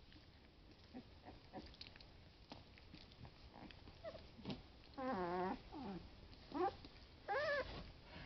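Litter of 20-day-old Boston Lab puppies play-fighting: faint scuffling, then from about four seconds in a string of four or five short, high, warbling puppy growls and whines, the loudest two near the end.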